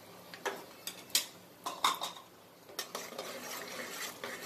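Steel slotted ladle clinking and scraping against the inside of an aluminium pressure cooker while cashews are stirred and fried in hot oil and ghee: a few sharp clinks, then a steadier stirring and frying sound near the end.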